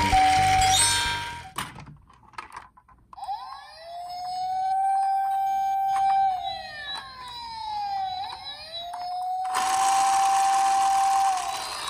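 Toy police car's electronic siren wailing through its small speaker: a tone that rises, holds steady for a few seconds and falls away, twice over. A steady hiss comes in under the second wail, and a music jingle ends in the first second.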